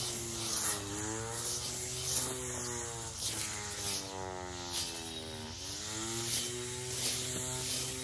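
Battery-powered weed eater with a cutting blade, its electric motor buzzing steadily; the pitch sags and recovers a few times as it cuts.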